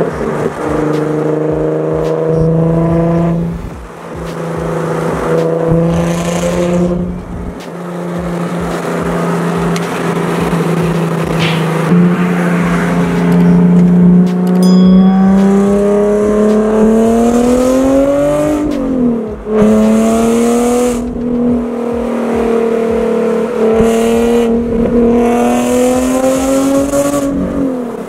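Nissan 370Z's 3.7-litre V6 through a Tomei Ti titanium exhaust, running under way. The note holds steady for the first half with a couple of brief dips, then climbs twice, dropping sharply once in between.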